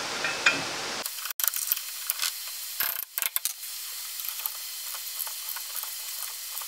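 Hand tools on a wheel hub's axle nut: a socket ratchet clicking, with scattered sharp metal clicks and knocks. They are densest about one to three seconds in, then come as lighter ticks.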